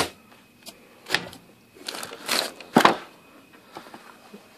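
Boxed card decks and their plastic packaging being handled: a few sharp clicks and taps as items are picked up and set down, with a short plastic rustle in between.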